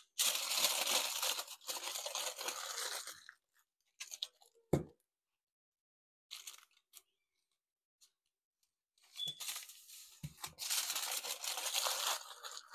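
Aluminium foil crinkling and crackling as it is folded and wrapped tightly around ears of corn, in two spells with a quiet pause between. A single thump about five seconds in.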